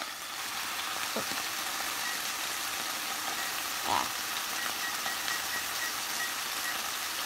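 Mahi mahi fillets frying in a skillet, a steady sizzle, with a brief knock about four seconds in.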